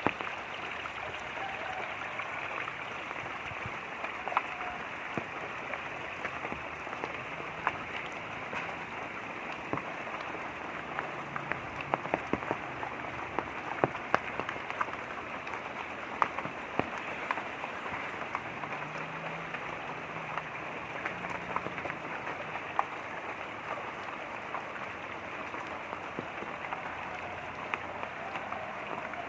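Light rain pattering steadily, with frequent sharp ticks of individual drops over a constant rush of running water.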